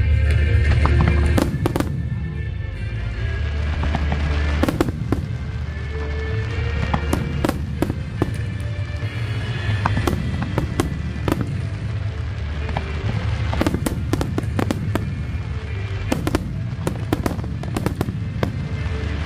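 Fireworks bursting: many sharp bangs and crackles, some in quick clusters, over loud music with a heavy bass.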